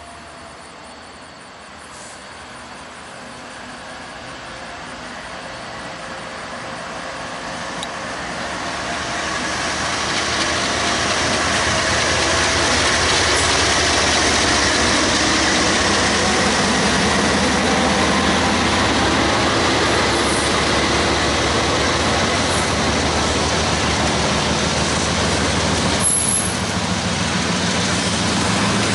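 Norfolk Southern diesel freight locomotives approaching and passing under power, growing louder over the first ten seconds or so. This is followed by the steady sound of double-stack container well cars rolling by on the rails.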